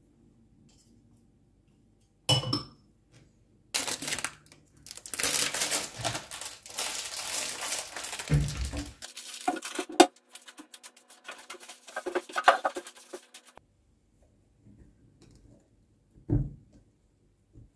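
Cooking noises around a stainless-steel saucepan of hot chocolate: a knock about two seconds in, then several seconds of rustling and scraping broken by sharp clinks of utensils on cookware, and another knock near the end as a silicone spatula goes into the pot.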